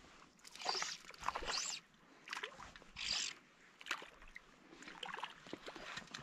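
Lake water splashing and sloshing in short, irregular bursts, a fish being handled and let go at the surface, with small clicks between.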